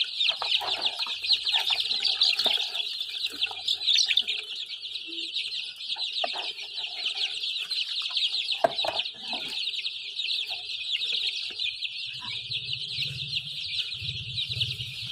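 A brood of young chicks peeping nonstop, many shrill overlapping peeps at once, with a few short knocks here and there.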